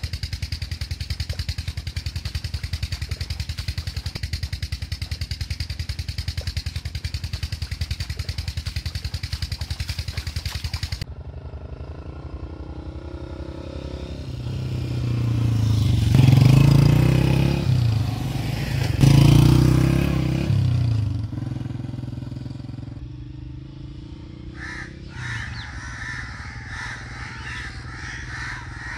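A 16-horsepower Chinese Peter-type single-cylinder diesel engine pumping a tube well runs with a steady, fast, even thumping that cuts off abruptly about 11 seconds in. A motorcycle then rides up, passes loudly, peaking twice, and fades away, and crows caw near the end.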